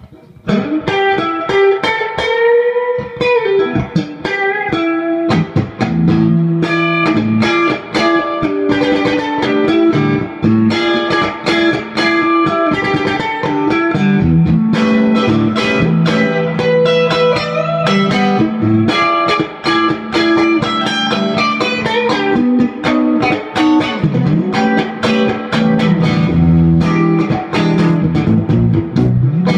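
Electric guitar (a Stratocaster) played loud through a 1964 Fender Vibroverb-clone tube amp with a JBL speaker, with heavy bass, mostly single-note lines, and a string bend about two seconds in.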